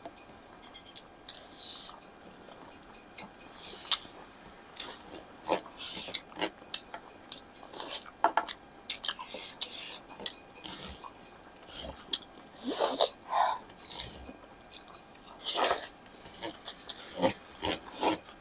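Close mouth noises of people eating: wet chewing and lip smacks, with irregular short clicks throughout and a few longer, louder smacks near the end.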